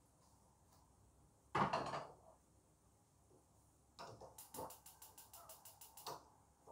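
A pot clatters down on the gas stove about one and a half seconds in. Later a quick run of sharp clicks, about eight a second for under two seconds, comes from the gas stove's igniter as a burner is lit, with a few light knocks of cookware among them.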